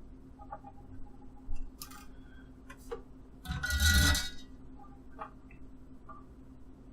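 Small clicks and taps of handwork with tools and plastic parts, with one brief louder scraping rustle about three and a half seconds in, over a steady low hum.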